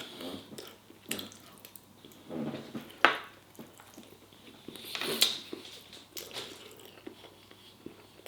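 Someone eating takeaway food: a few short, wet chewing and mouth sounds with pauses between, and light knocks from handling the food box.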